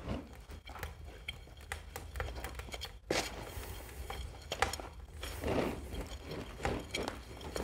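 A steel nail bar stabbing and churning through a damp mix of sawdust and vegetable oil in a plastic bucket: irregular scraping and knocking strokes, over a low steady hum.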